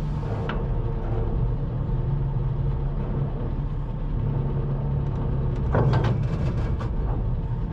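Scania R580 truck's V8 diesel engine running steadily at low revs. A short rough noise rises over it about six seconds in.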